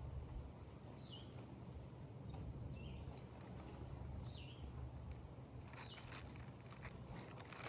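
A bird calling over and over, a short note sliding downward, about once every second and a half, over a steady low background rumble. A few small clicks come in near the end.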